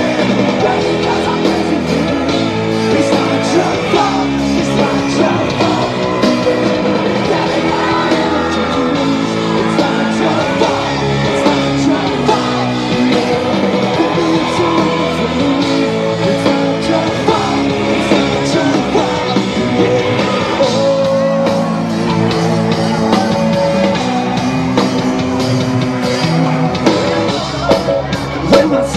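Live rock band playing loudly over a PA: male lead vocals over electric guitar, drums and keyboard, with yells from the crowd mixed in.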